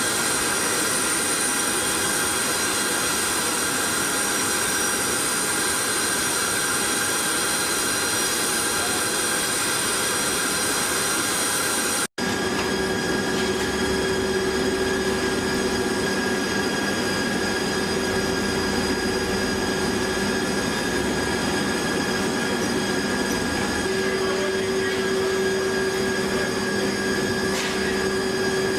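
Steady turbine whine and rush of a large military cargo aircraft, heard from inside its cargo hold. It cuts out for an instant about twelve seconds in and comes back with a slightly different set of steady tones.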